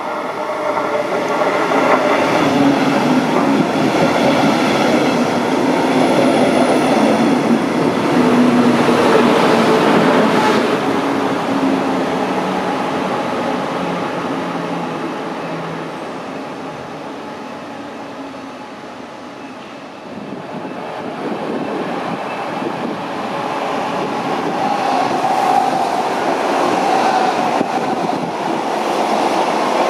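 Electric train running through a station: wheel and rail noise with a steady whine. Loud over the first dozen seconds, then dying away. From about twenty seconds in, train noise rises again.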